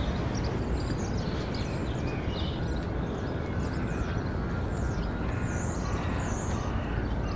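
Small birds chirping in short, repeated calls over a steady low rumble of city traffic.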